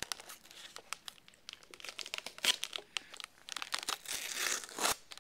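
Fingers prying and picking at the snap-on lid of a plastic deli cup: irregular crinkling and clicking of the plastic, in short bursts, louder about halfway through and again near the end.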